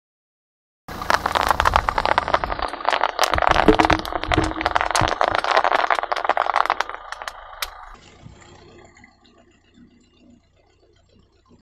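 Car tyre rolling over a sheet of bubble wrap: a dense run of popping and crackling bubbles with sharp, louder pops, starting suddenly about a second in and dying away after about seven seconds.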